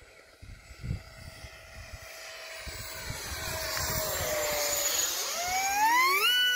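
Electric motor of a radio-controlled Su-57 model jet whining in flight. Its pitch sinks slowly for a few seconds, then climbs steeply about five seconds in and holds high as the motor speeds up. Low gusts of wind rumble on the microphone in the first half.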